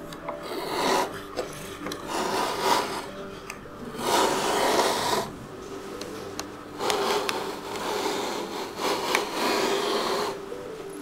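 A giant pencil sharpener's steel blade shaves a thick wooden column, rasping and scraping as a long curled shaving peels off. It goes in about five strokes of a second or two each, with short pauses between them.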